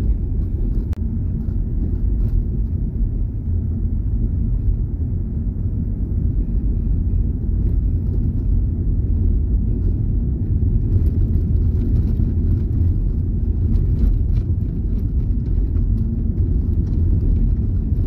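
Car driving along an unpaved dirt road, heard from inside the cabin: a steady low rumble of engine and tyres.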